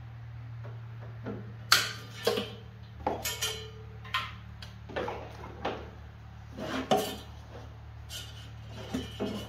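Irregular clattering knocks and rattles, about a dozen, as packed leaf-vacuum parts (hose, chute and metal trailer frame) are shifted and handled in their pallet crate, over a steady low hum.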